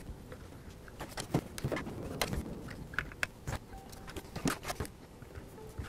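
Scattered light clicks and taps of a hand screwdriver and small screws being driven through a plastic hard-drive sled into the drive, irregularly spaced.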